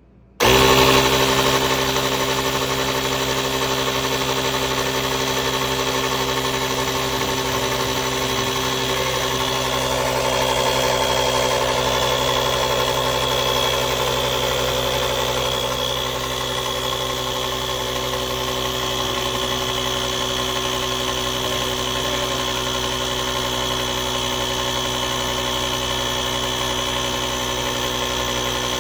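Small 12V piston air compressor built into a UTRAI portable jump starter pack, running loud and steady as it pumps up a flat lawn mower tyre. It starts abruptly about half a second in.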